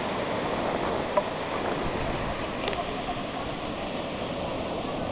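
Ocean surf breaking and washing over the shallows: a steady rushing noise, with one brief sharp sound about a second in.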